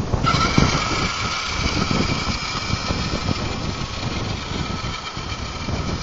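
Fisher-Price toy RC car's small battery-powered electric motor switching on about a quarter second in and whining steadily as the car drives off in low gear, over a low rumble.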